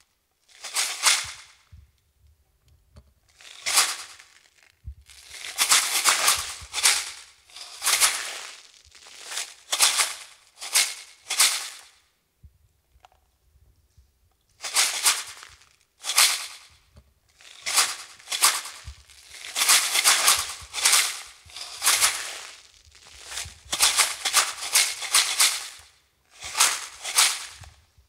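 Sound-art score of short, irregular bursts of crackling noise separated by brief silences, with a longer pause about halfway through.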